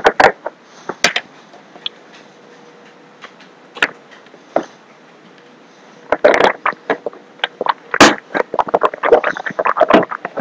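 Plastic drink bottle being handled and crinkled close to the microphone. A few scattered clicks come first, then a dense run of crackling and clicking in the last four seconds.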